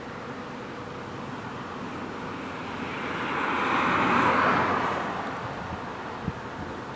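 A car passing by, rising to a peak about four seconds in and then fading away.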